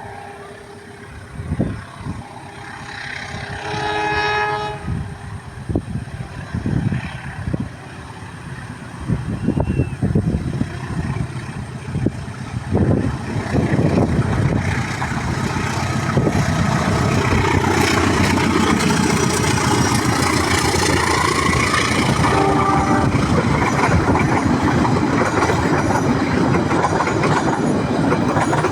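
A train sounds its horn once, about four seconds in. It then approaches and passes with a rumble and the clickety-clack of wheels over rail joints, growing loud from about halfway through and staying loud as the carriages go by.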